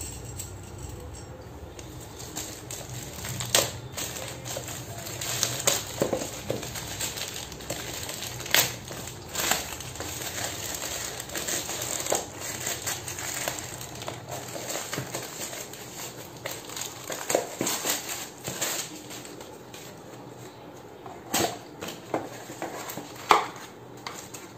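Plastic courier mailer being torn open and crumpled by hand, crinkling and crackling, with scattered sharp snaps. Near the end the flaps of a cardboard box are handled.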